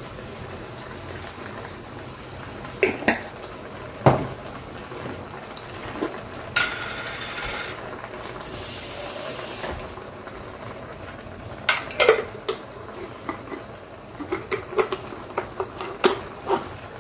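A metal spoon clinking and scraping against a stainless steel frying pan as shrimp paste is added to sautéing pork, over a steady low cooking hiss. The knocks are scattered at first and come in a quick cluster in the last few seconds.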